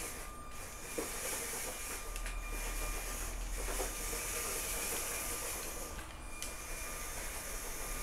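LEGO MINDSTORMS EV3 omni-wheeled robot driving on a wooden floor under remote control: a faint, steady hissing whir with a thin whine, which drops out briefly a few times. There is a light click about a second in.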